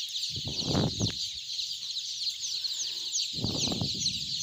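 A large flock of five-day-old Golden Misri chicks peeping without pause, hundreds of short, high chirps overlapping. A couple of low muffled noises come about a second in and near the end.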